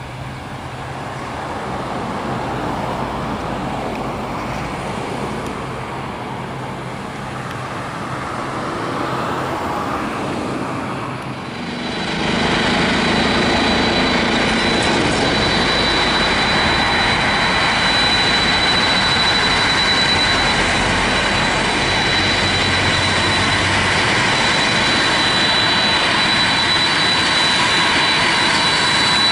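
A Boeing 767-223 freighter's GE CF6 turbofan engines during its landing rollout: a steady jet roar. After a sudden cut about 12 s in, the same engines run louder at taxi power, a roar with a steady high whine over it, as the aircraft moves onto the runway for departure.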